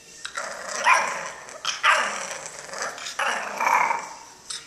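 English bulldog puppy giving three drawn-out barks, each about a second long.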